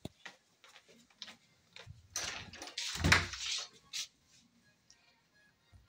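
A wooden interior door being handled: a few short clicks and knocks, then a louder rustle with a heavy thud about three seconds in.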